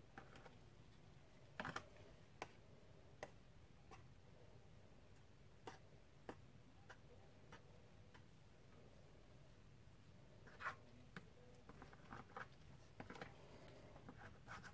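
Near silence with faint, scattered small taps and scrapes, a few more of them near the end: a wooden stick working the top of thick soap batter in a plastic-lined loaf mould.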